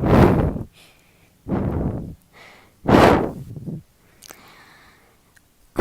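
A person breathing heavily, three loud huffing breaths close to the microphone.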